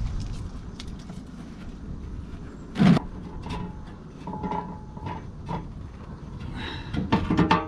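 Scattered clicks and knocks of an old oil filter being unscrewed and handled by hand, with one sharp knock about three seconds in, a brief squeak near the middle and a short clatter near the end.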